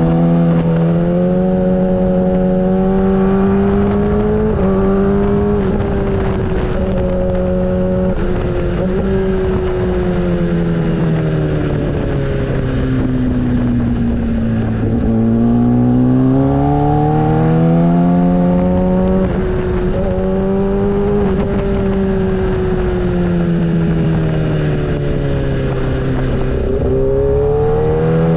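Motorcycle engine running while being ridden, its revs rising and falling and stepping down suddenly several times as gears change, over a rushing wind noise.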